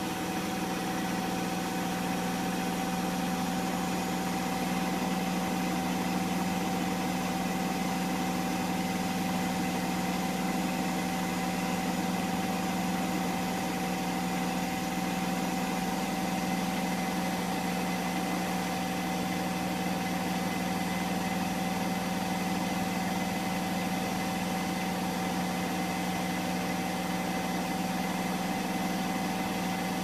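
Hotpoint front-loading washing machine on its final spin near the end of the cycle, running at a steady high speed with a constant motor whine and hum.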